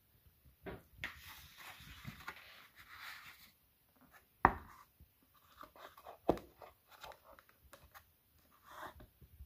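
Takeaway paper packaging and a lidded paper cup being handled: a rustle of paper in the first few seconds, then two sharp knocks about two seconds apart, the first the loudest, followed by light handling noises.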